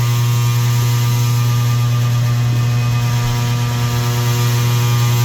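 Katool KT-T800 tire changer's electric turntable motor running, a loud steady hum as the machine turns the wheel to work the dirt bike tire's bead over the rim.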